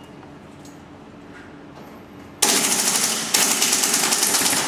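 SocomGear Noveske N4 airsoft rifle firing on full auto: after a quiet start, a long rapid burst of shots begins about halfway through, breaks off briefly and goes straight into a second burst.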